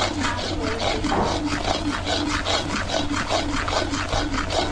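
Spoon scraping rhythmically around a pot, about three strokes a second, as thick milk pera is stirred over the fire.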